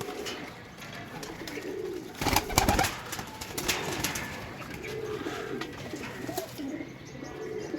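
Domestic pigeons cooing repeatedly, low and wavering, with a brief loud rustle about two seconds in.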